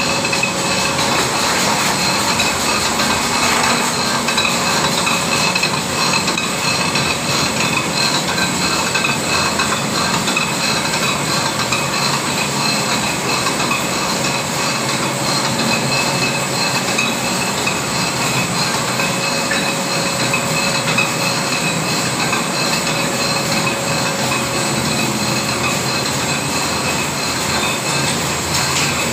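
PP twine (sutli) extrusion line running: a steady, dense mechanical whirr with a few constant high whining tones, the plastic tape feeding through its rollers.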